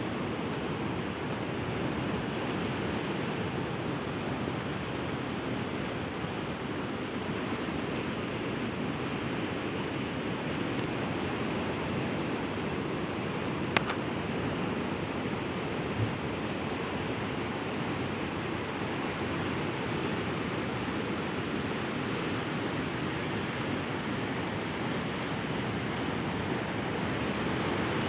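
Sea waves breaking and washing on the shore: a steady, continuous surf noise, with a faint click about 14 seconds in.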